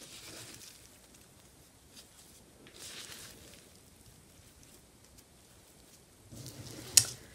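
Gloved hand rustling through moist compost bedding with dry leaves in a worm bin, in three short spells, with one sharp click near the end.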